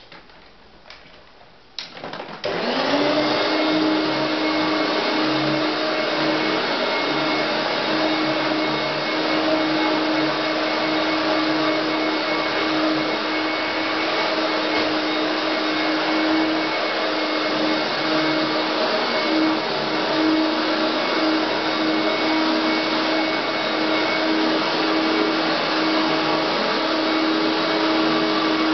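Hoover Turbomaster U5094 upright vacuum cleaner: a few clicks, then it is switched on about two seconds in, its motor spinning up and settling into a steady run with a steady whine over the rush of air.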